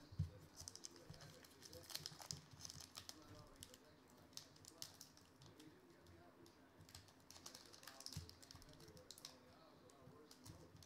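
Plastic trading-card pack wrapper crackling faintly in irregular small clicks as fingers pick at its sealed, crimped top to tear it open.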